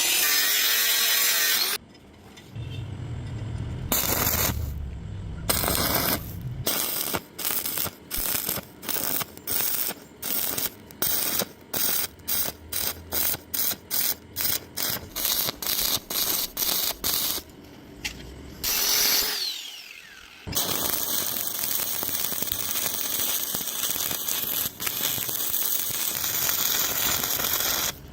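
Stick-welding (SMAW) electrode arc crackling and hissing. Through the middle it comes in quick bursts, about two a second. Near the end it runs steadily again.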